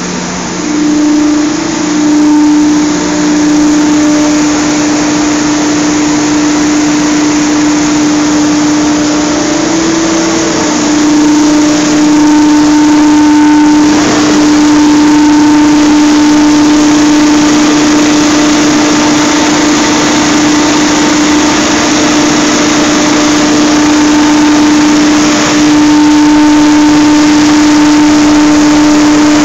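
Centrifugal blowers and their electric motors running in a biomass gasifier plant: a loud, steady machine drone with a constant hum tone running through it.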